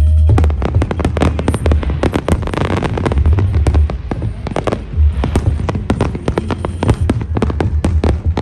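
Fireworks display: a dense, rapid stream of shells bursting and crackling, many pops overlapping, over a steady low rumble that drops out briefly about midway.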